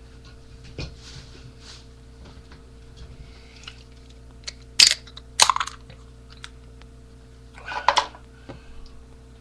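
Short crackling, crunching noises, the loudest about five seconds in and again near eight seconds, with scattered small clicks over a steady low hum.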